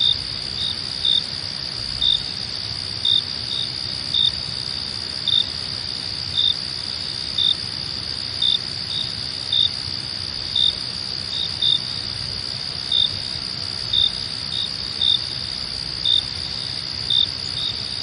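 Night crickets: a steady high trill with louder short chirps over it, about one a second and sometimes in quick pairs.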